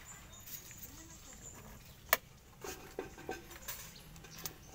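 Small clicks and taps of test-lead wires and clips being handled on an opened induction cooker, with one sharp click about two seconds in, over a faint steady hiss.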